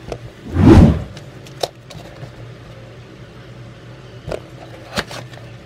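Cardboard product box being handled: one loud rush and thump just under a second in, then a few light taps and clicks.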